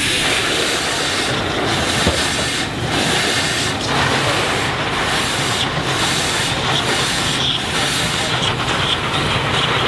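c. 1910 Marion-Osgood Model 73 steam shovel working its steam engines: a steady, loud hiss of steam as the dipper is hoisted out of the dirt pile.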